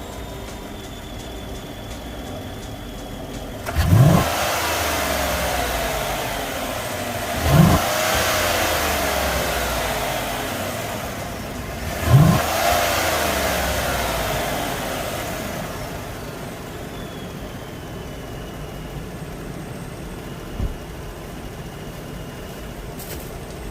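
Chevrolet Silverado V8 breathing through an AIRAID Jr. intake tube in place of the stock airbox, heard with the hood open: idling, then blipped three times in quick rising revs, each sinking slowly back to idle.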